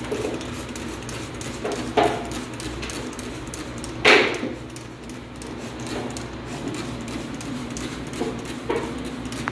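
Trigger spray bottle squirting cleaner onto a stainless steel sink in a few short sprays, the loudest about four seconds in, with light knocks against the steel in between.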